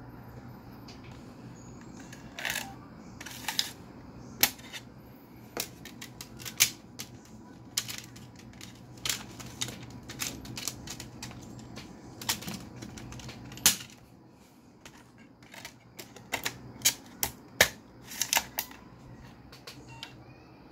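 A plastic CD jewel case and video CDs being handled. An irregular string of sharp plastic clicks and snaps comes as the case is worked open and the discs are unclipped from the hub and pressed back in, with a few louder snaps among them.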